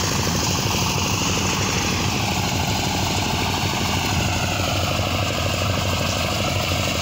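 Engine-driven soybean threshing machine running steadily while dried soybean plants are fed into it: a constant drone with a rapid, even pulse.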